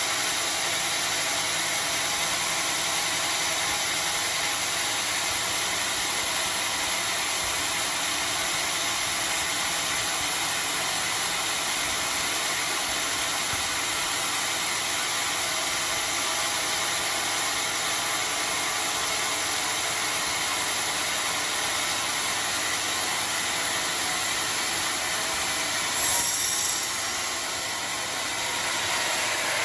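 Homemade sawmill running steadily. About 26 seconds in there is a brief sharp noise, after which the sound drops a little for a couple of seconds.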